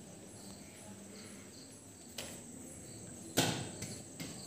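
Crickets chirping faintly in a steady, even rhythm of high chirps. A sharp knock about three and a half seconds in, with lighter clicks around it, is the loudest sound.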